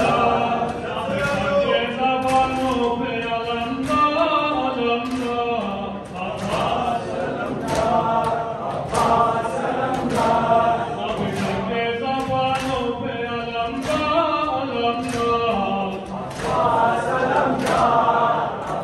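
A crowd of men chanting a noha, a Shia mourning lament, in unison. Sharp slaps of hands on bare chests (matam) come through in a steady rhythm.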